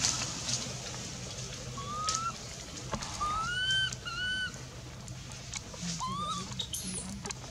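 Baby long-tailed macaque crying: about four short, high, arched coo calls, each rising then falling slightly, spaced through a few seconds.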